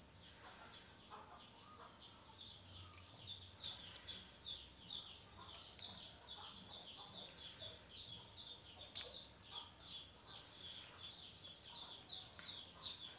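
Faint background chirping of birds: a steady run of short, falling high chirps, several a second, with a few faint clicks.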